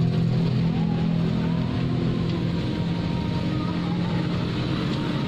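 Steady hum of a running motor, like an idling engine.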